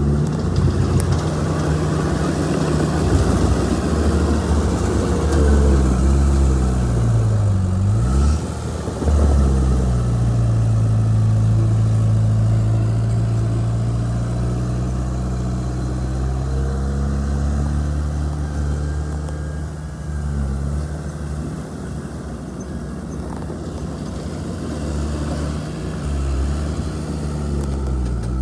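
Heavy earthmoving machine's diesel engine running steadily at working speed. About six seconds in, its pitch sags for a couple of seconds, then climbs back and holds steady.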